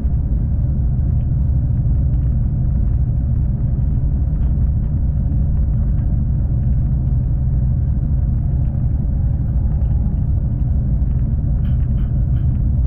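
V/Line passenger train running along the track, heard from on board as a steady low rumble, with a few faint clicks near the end.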